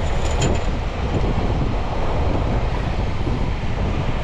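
Wind buffeting the microphone over choppy water slapping around a small boat, a steady rough rumble, with a few light clicks about half a second in.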